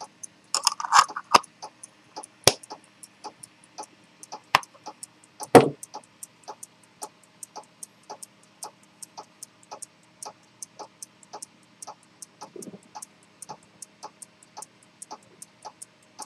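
Pocket chronometer with a detent escapement and helical hairspring ticking steadily, about five ticks a second. A few louder knocks and clicks come in the first six seconds, the loudest near six seconds in, as the watch case is handled and set down.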